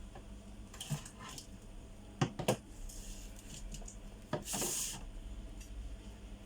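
Small clicks and taps of tools and parts being handled on a workbench, with a short scraping hiss about four and a half seconds in.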